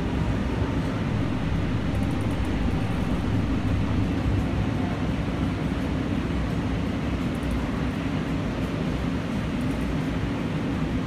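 Steady low rumble of an Expo Line light rail train running along the track, heard from inside the passenger car.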